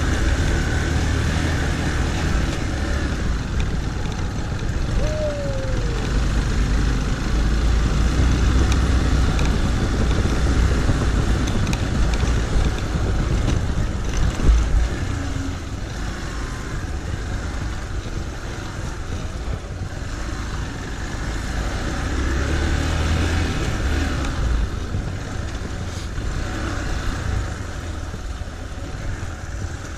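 Motorcycle engine running at low speed as the bike rides a rough, snowy and muddy trail, a steady low rumble. A single heavy low thump about halfway through.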